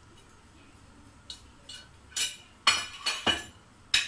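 A metal spoon clinking and knocking against a plate and an aluminium pressure cooker as chopped onions are scraped into the pot. There are about seven sharp, uneven clinks, starting about a second in.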